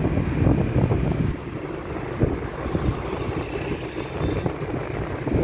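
Motorbike traffic rumbling, heard from a moving motorbike, with wind buffeting the microphone.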